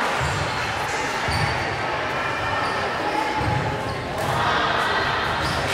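Volleyball bouncing on a gym floor: four dull thuds at uneven spacing in a large echoing hall, over steady crowd chatter.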